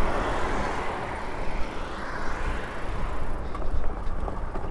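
Wind rushing over the camera microphone and the fat tyres of a Super73 RX electric fatbike rolling while riding at speed: a steady noisy rush with no engine note.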